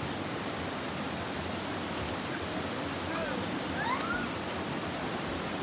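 Steady rush of a river flowing over rocks in small rapids and a low cascade, with a few faint, short rising calls about three to four seconds in.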